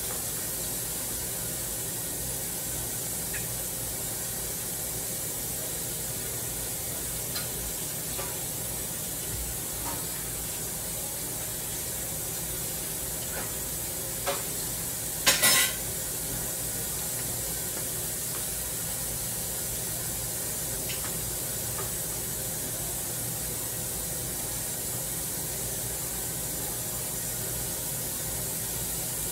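Kitchen background sound: a steady hiss with a few faint clinks, and one short, louder clatter about halfway through.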